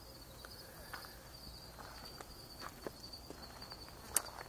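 Faint footsteps on grass, soft scattered scuffs with a sharper click near the end, over a steady high-pitched insect trill.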